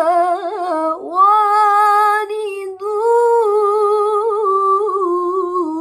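A young woman's solo Quran recitation in melodic tilawah style: long held notes with wavering, ornamented pitch, broken by short breaths about one second and about three seconds in.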